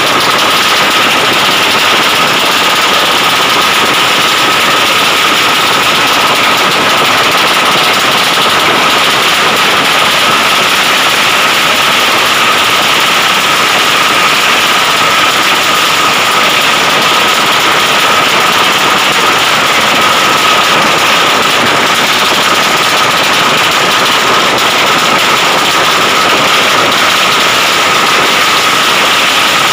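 Modified drag motorcycle engine running very loudly at steady high revs, with a thin, steady high whine over it and no change in pitch.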